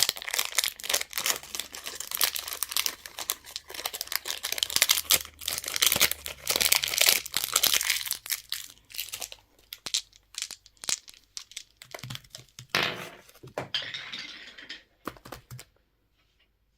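Plastic candy wrappers crinkling and tearing as they are opened, a dense crackle at first that thins to scattered crackles and a few rustles, then stops about a second before the end.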